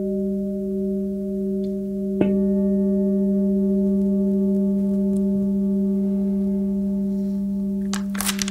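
Large brass singing bowl struck with a wooden mallet, once about two seconds in, ringing on with a steady low hum and several higher overtones that slowly fade. A brief rustle near the end.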